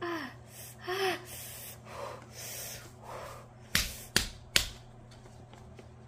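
A woman gasping and whimpering with short falling cries, then breathing hard while bracing to pull a hard-wax strip off her leg. Three sharp taps come close together about four seconds in.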